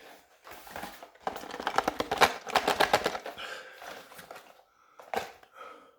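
Cardboard packaging being handled and opened. A quick run of rattling clicks lasts about two seconds, followed by lighter rustling and a single knock near the end.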